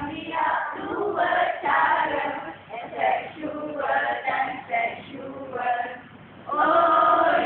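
A group of women singing a song together, with a long held note near the end.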